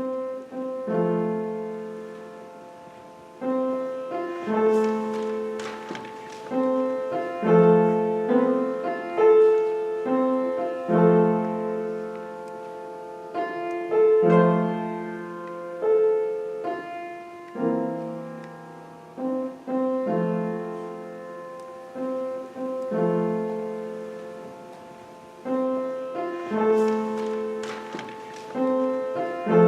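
Slow piano music: chords and melody notes struck and left to ring out, each one dying away before the next.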